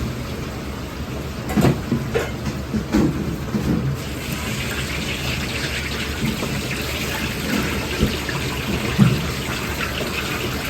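Commercial kitchen sounds: a few knocks and clatters in the first few seconds, then a steady hiss from about four seconds in.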